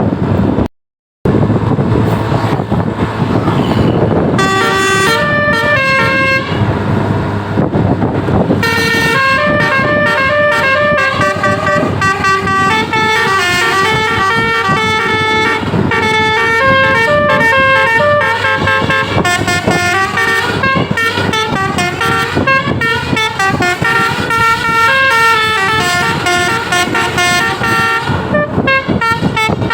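Bus telolet horn, a Basuri multi-tone musical air horn, playing a fast tune of short stepped notes over road and wind noise. The tune starts about four seconds in, pauses briefly, then runs on densely, after a moment of silence about a second in.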